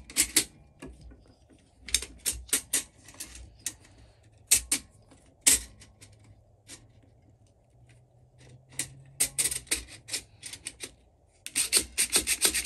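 AR-15 buffer and buffer spring being pushed into the receiver extension tube past the buffer retainer detent: metal clicks and scraping of the spring coils against the tube, in scattered runs, the busiest just before the end.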